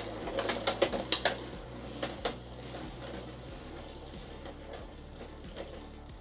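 Beyblade X spinning tops battling in a plastic stadium: a few sharp clacks of collision in the first couple of seconds, then a quieter, steady rattling whir as they keep spinning.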